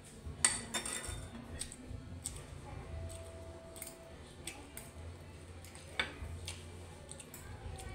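Metal fork and spoon clinking and scraping against a ceramic plate of rice, with a sharp clink about half a second in and another about six seconds in, and lighter ticks between. Faint background music underneath.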